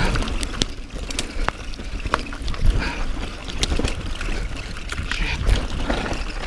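Mountain bike descending a rough trail, heard from a body-mounted camera: rattling and many sharp knocks as the bike goes over rocks, with wind rumbling on the microphone. Squeaking of the rider's rubber prosthetic hand against the handlebar, a sign that it is starting to slip on the wet bars.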